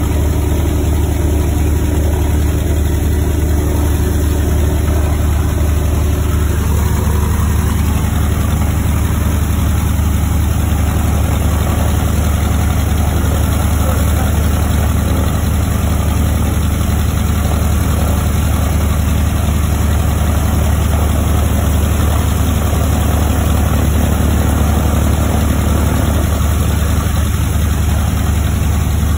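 B-25 Mitchell's Wright R-2600 twin-row radial engine idling steadily, heard from inside the cockpit, on its first run after a complete overhaul.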